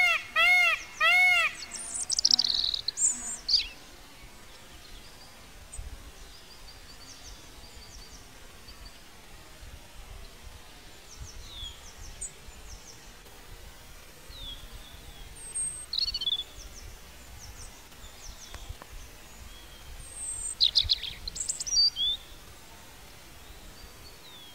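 Birds calling over a faint steady outdoor hiss: a quick run of repeated rising-and-falling pitched notes in the first second or so, then scattered short high chirps, louder about two seconds in and again near the end.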